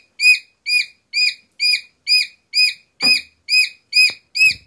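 Domestic chicken chick peeping loudly and regularly, about two short sharp peeps a second without a break: the persistent call of a lone chick in distress. A couple of faint knocks come in the second half.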